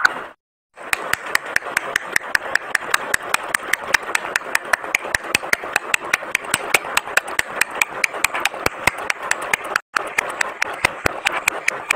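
Rapid, evenly spaced clicking, several clicks a second, over a steady hiss; it cuts out briefly twice.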